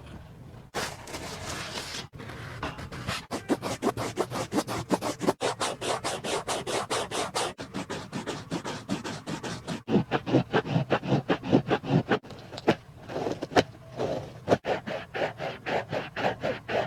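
Rapid, rhythmic scratching and scraping, about four to five strokes a second.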